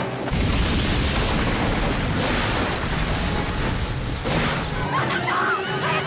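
A heavy explosion sound effect: a loud blast whose rumble goes on for several seconds under the score. About five seconds in, voices start shouting.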